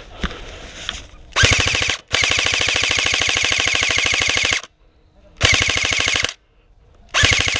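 Airsoft electric rifle (AEG) firing in full-auto: four bursts of rapid, evenly spaced shots. The second burst is the longest, about two and a half seconds.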